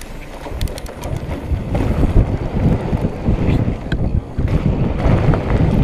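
Mountain bike descending a dirt trail: wind buffeting the microphone over a low rumble of tyres on dirt, with scattered small clicks and rattles from the bike.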